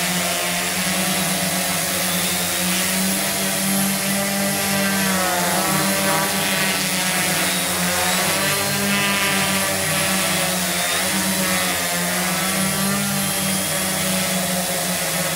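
ZD850 hexacopter hovering, its six electric motors and propellers giving a steady loud buzz with a strong low hum and overtones that waver up and down in pitch.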